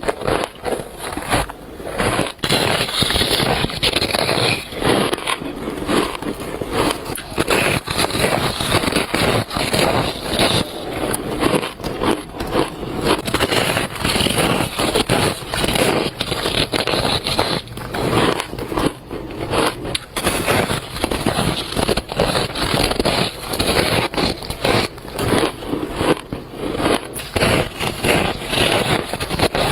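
Close-up bites and chewing of shaved ice, crunching and squeaking in a dense, unbroken run of crackles.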